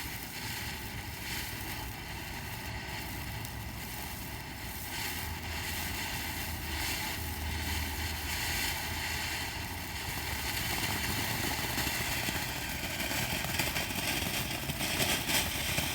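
Ground firework fountain burning and spraying sparks: a steady hiss with scattered crackles, a little louder in the second half.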